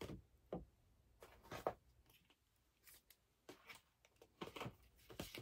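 Faint, scattered handling sounds: short rustles and light taps as items and packaging are moved and set down.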